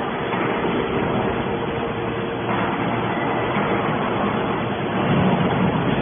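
Hydraulic scrap metal baler running: a steady machine hum from its hydraulic power unit under a noisy mechanical din, getting slightly louder about two and a half seconds in.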